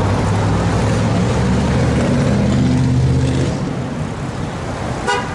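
Motor vehicle engine running close by in street traffic: a low steady drone that drops away about three and a half seconds in. A brief sharp sound near the end.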